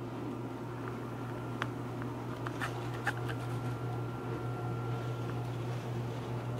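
A steady low hum, with a few light clicks scattered through the first half and a faint thin tone in the middle.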